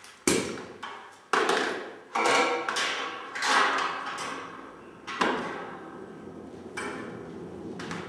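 Short blasts of compressed air from a compressor's air hose, about seven in a row, each starting sharply and fading within a second; the strongest come in the first four seconds.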